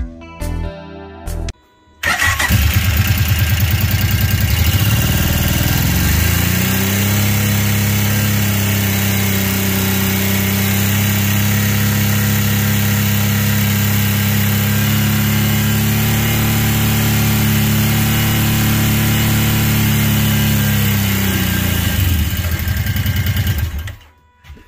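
Kawasaki Brute Force 750's V-twin engine starting about two seconds in, idling briefly, then revved up and held at a steady raised speed before easing back and shutting off near the end. Held on the throttle, the engine pushes oil out at a split grommet on the case.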